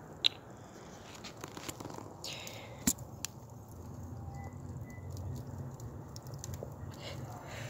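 Plastic frying-oil bottle crinkling and clicking as it is handled and tipped to pour, with a few sharp clicks, over the crackle of a wood campfire.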